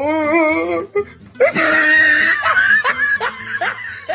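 Laughing sound effects in quick succession. A wavering, warbling laugh comes first. About a second and a half in, a loud high-pitched laugh follows, and near the end it breaks into short rising "ha" bursts, about three a second.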